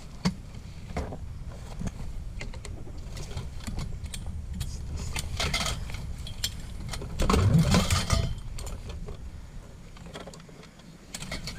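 Scrap metal being handled: scattered metallic clinks and rattles, with a louder scraping, rustling stretch lasting about a second roughly seven seconds in.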